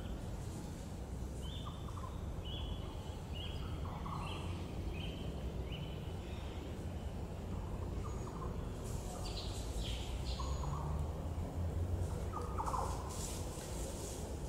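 Wild birds calling in the background: a run of about six short high notes a little under a second apart in the first half, then scattered other calls, over a steady low rumble.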